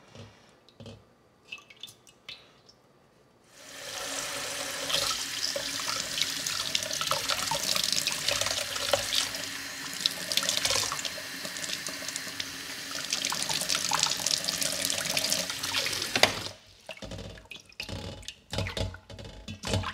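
Kitchen tap running into a steel bowl in a stainless steel sink while sausage casings are rinsed of their salt under it. It starts about three and a half seconds in, runs steadily, and shuts off about sixteen seconds in. Small splashes follow as a hand works the casings in the water.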